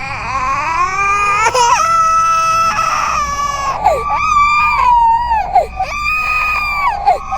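Designed ghost baby cry sound effect: a processed infant wail held for about four seconds, then a run of shorter cries that each sag in pitch at the end, over a low eerie rumble.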